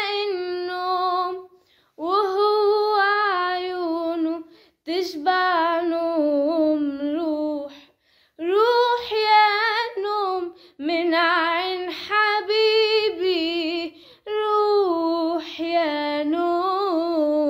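A woman singing an Egyptian Arabic song solo and unaccompanied, in long ornamented phrases with vibrato on the held notes, broken by short pauses for breath.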